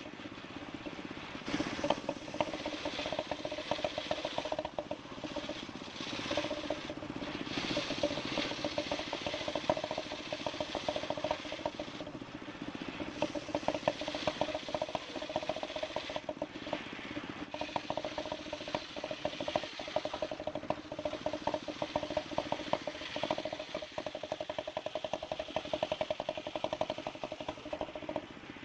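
Motorised wood saw running steadily, a constant hum under a fast, dense rattle.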